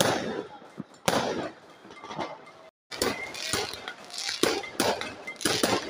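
Aerial fireworks going off: a bang at the start and another about a second in. After a brief gap, a quick run of pops and bangs follows.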